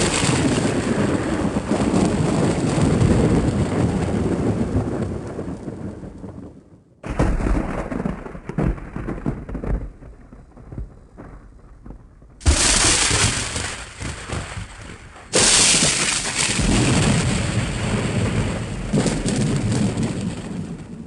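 Thunder sound effects: a series of thunderclaps, each starting suddenly and fading out into a long rumble. A new clap breaks in about 7 seconds in, again at about 12 seconds, and once more about three seconds later.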